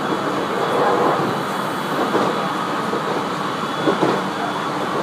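Aoimori Railway 701 series electric train running, heard from inside the car: a steady rumble of wheels on rail with a faint high whine. One sharp knock comes about four seconds in.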